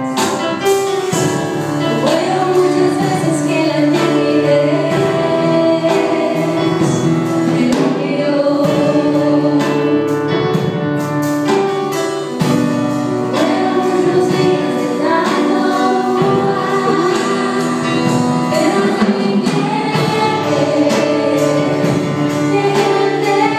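A woman singing a Christian song into a microphone over amplified electronic keyboard accompaniment, the music going on without a break.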